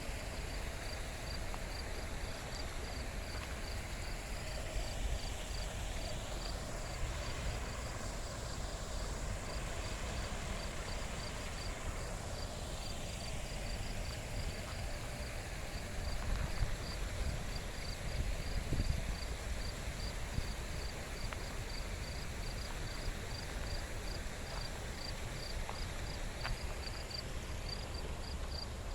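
An insect, cricket-like, chirping in a steady rapid series of short high chirps, about three or four a second, over a steady low rush of outdoor noise.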